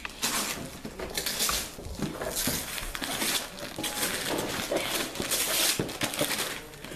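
Gift wrapping paper being torn off a cardboard box by hand, in a run of irregular ripping and crinkling bursts.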